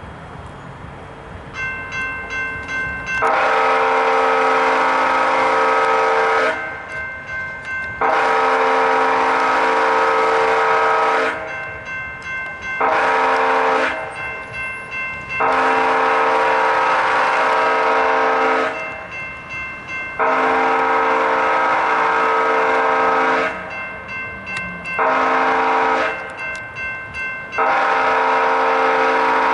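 An approaching Amtrak train's locomotive horn sounds the grade-crossing signal in loud multi-note blasts: long, long, short, long, then long, short, long. A crossing warning bell starts ringing rapidly just before the first blast and keeps ringing in the gaps between them.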